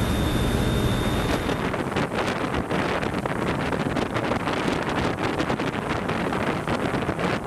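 Mark VI patrol boat running at speed: engine noise and rushing water, with wind buffeting the microphone. A steady high whine and the low engine hum drop away about a second and a half in, leaving mostly gusty wind and water noise.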